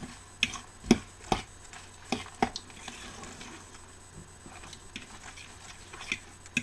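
Hand mixing a ground-turkey meatloaf mixture in a bowl: wet squishing and kneading, with a quick run of sharp knocks and slaps in the first couple of seconds and two more near the end.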